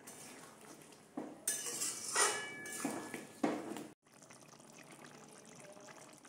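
Metal spatula stirring a thin potato and paneer curry in a metal kadai: several wet scrapes and clinks against the pan, with a faint metallic ring, between about one and four seconds in.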